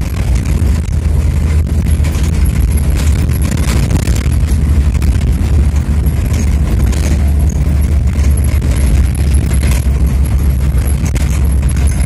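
Vehicle driving on a dirt road, heard from inside the cabin: a loud, steady low rumble of engine and tyres, with scattered knocks and rattles as it jolts over the rough surface.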